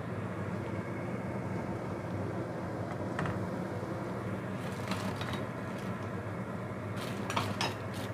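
Steady hum of a gas stove burner heating a pot of water, with a few light clinks of metal and glass: once about three seconds in, again about five seconds in, and a short cluster near the end, as the pot's glass lid comes off.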